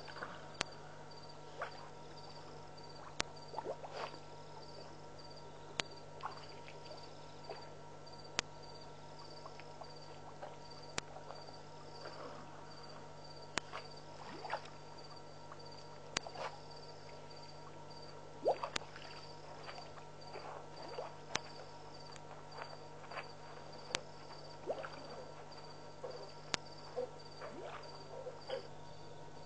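Night ambience at a waterhole: insects chirping in a steady, evenly pulsed high trill and frogs calling, with scattered sharp clicks and short splashy water sounds over a steady low hum.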